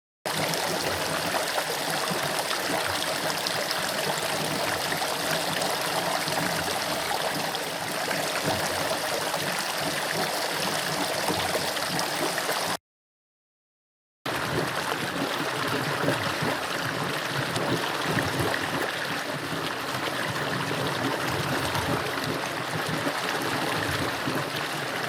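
A small creek flowing and bubbling, steady throughout. It cuts to silence for about a second and a half about halfway through, then a second stretch of the creek carries on.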